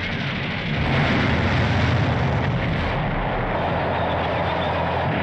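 War-film soundtrack of explosions: a continuous heavy rumble of blasts as demolition charges go off along a bridge, growing louder about a second in.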